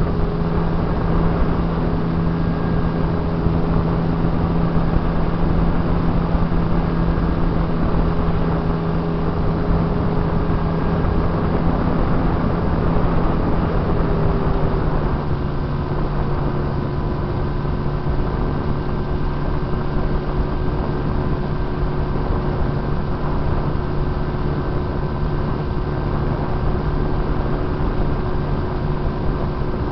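RC plane's motor and propeller heard from an onboard camera, a steady drone over rushing air noise; the pitch drops a little about halfway through as the throttle eases.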